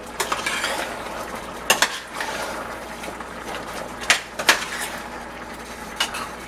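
Metal spoon stirring chicken stew in a stainless steel pot, scraping along the inside with several sharp clinks against the pot's rim and sides.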